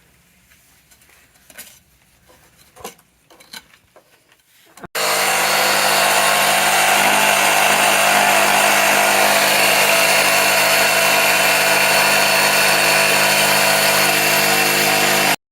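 A few faint knocks and clicks, then about five seconds in a power tool suddenly starts running loud and steady for about ten seconds before cutting off abruptly.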